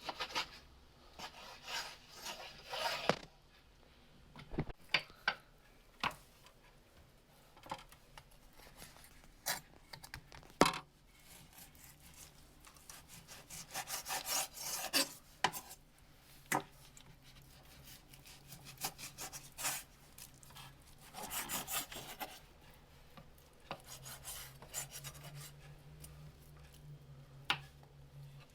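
Kitchen handling sounds: irregular bursts of scraping and rubbing with scattered sharp clicks and knocks, as on a wooden board. A faint low hum comes in during the second half.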